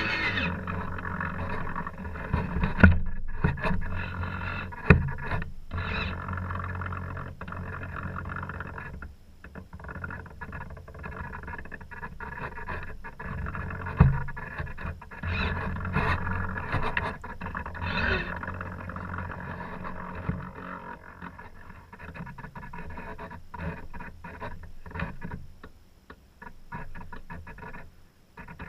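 Steady noise of wind and water aboard a racing sailboat, with scattered sharp knocks; the loudest knock comes about fourteen seconds in.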